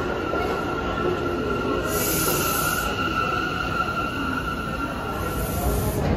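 New York City subway train rolling through the station: a steady rumble with a sustained high-pitched wheel squeal that fades near the end, and two brief hisses, one about two seconds in and one about five seconds in.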